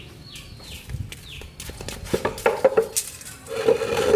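Sharp metallic clinks and knocks from about two seconds in, loudest near the end, as a long square steel tube is handled and laid across a small wooden stool. Short, high, falling chirps of chicks peep in the first second or so.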